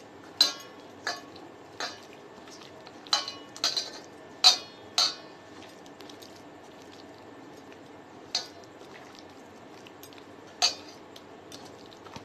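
Stainless steel mixing bowl clinking as chicken pieces coated in flour, sauce and egg are mixed in it by hand: about ten sharp, briefly ringing knocks at irregular intervals, most of them in the first five seconds.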